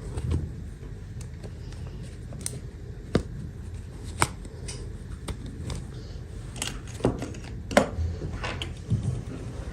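Hands unboxing small plastic toys and their packaging: scattered sharp clicks and taps with brief rustles, over a low steady hum.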